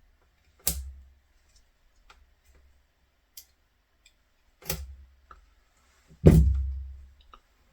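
Three knocks of tools and parts being handled, the last one near the end the loudest with a low thud dying away, and faint light clicks between them.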